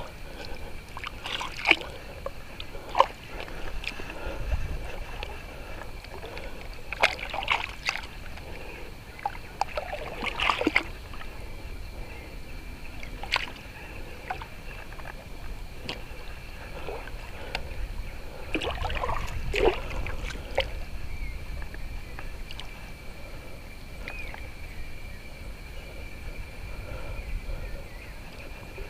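Water sloshing and splashing in short, irregular bursts, about half a dozen times, over a low steady rumble.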